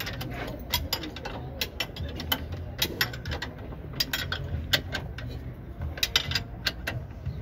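Sharp metallic clicks and clinks at irregular intervals, from hands and tools working on a car's front brake hub and suspension, over a steady low hum.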